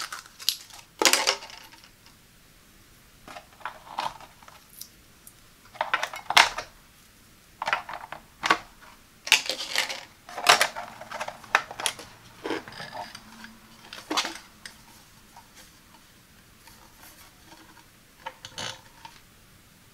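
Batteries clicking and clattering as they go into the plastic battery compartment of a digital body fat scale, then the plastic battery cover being fitted back on: a run of separate small sharp clicks and rattles with pauses between them.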